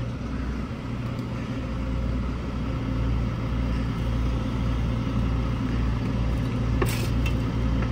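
Excavator's diesel engine running steadily under load while its hydraulic auger drills into rocky ground, with a single sharp knock near the end.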